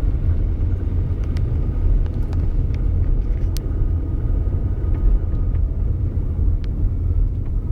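Honda Prelude engine running, a heavy steady rumble with a faint high whine over it that wavers slightly in pitch. Scattered sharp ticks come through now and then. The whine is the unwanted noise being shown.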